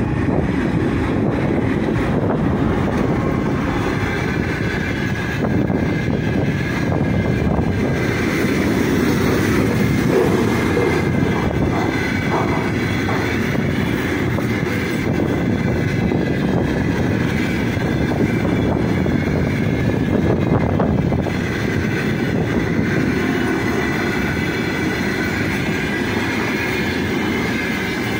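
Freight train of flatcars loaded with long welded rails rolling past close by, a steady loud noise of wheels on rails.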